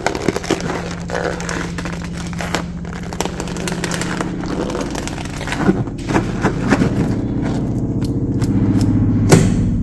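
Electric grinder motor running, with hard pieces crunching and rattling inside the jar. After about six seconds the crunching thins out and the motor settles into a steadier, slightly louder hum, with one sharp knock near the end.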